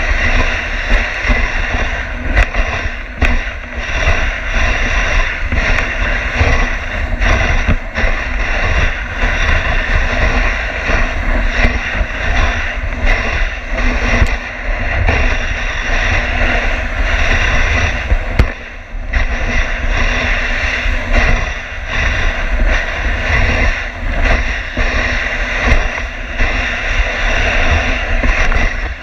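Dog sled running along a snowy trail: a steady scraping hiss from the runners over the snow, with frequent knocks and rattles and a low rumble as the sled bumps along.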